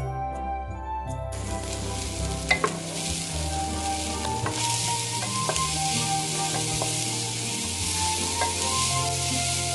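Food sizzling as it is stir-fried in a pan, starting about a second in and getting louder about halfway through, with a few sharp clicks of the stirring utensil. Background music plays underneath.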